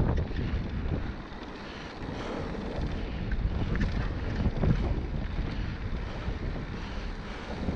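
Mountain bike rolling fast down a dirt trail: wind buffeting the microphone over the rumble of the tyres, with occasional knocks and rattles from the bike over bumps.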